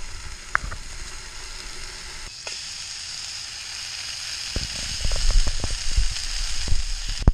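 Bacon rashers sizzling in the frying pan of a Trangia camping stove: a steady frying hiss, fuller from about two and a half seconds in, with a few low thumps in the second half.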